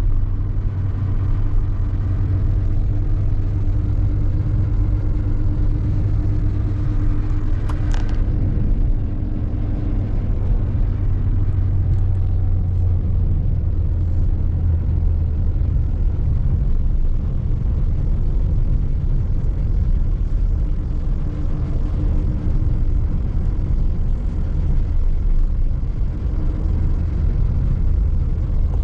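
A vehicle engine running steadily with a deep rumble, one steady tone held above it. A short sharp click about eight seconds in.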